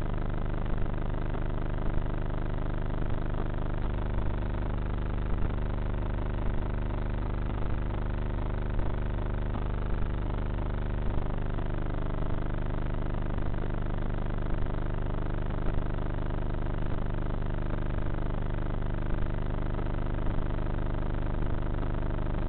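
Electric motor and propeller of a Bixler foam model plane running steadily, heard through its onboard camera. The low hum changes pitch twice along the way, and a pair of short ticks repeats about every second and a quarter.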